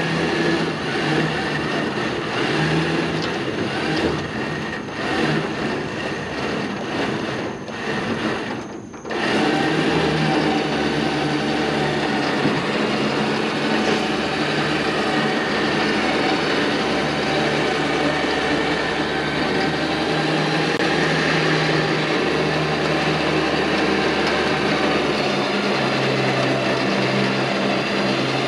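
Badland electric winch running under load, its motor whining steadily as it pulls a car up the ramps onto a car trailer. The sound dips briefly about nine seconds in, then carries on.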